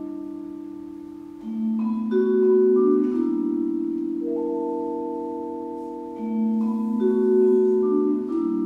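Vibraphone playing a slow introduction: chords of several notes struck every second or two, each ringing on and fading slowly with a steady pulsing vibrato.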